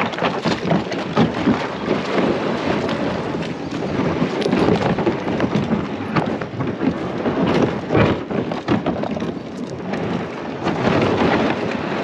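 Loaded fishing kayak's hull dragged over a creek gravel bar: a loud, continuous grinding crunch of stones scraping and clattering under the hull, starting abruptly and rising and falling as it is pulled along.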